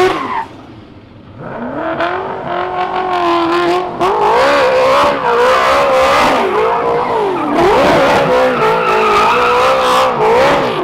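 Drift car engines revving hard, their pitch swinging up and down with the throttle over tyres squealing and skidding on tarmac. A short lull comes about a second in, and the sound jumps louder about four seconds in.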